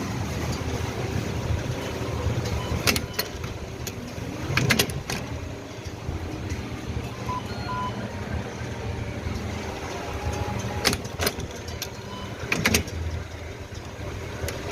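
Semi-automatic strapping machine running with a steady motor hum, with a few sharp clacks, some doubled, about 3, 5, 11 and 12.5 seconds in.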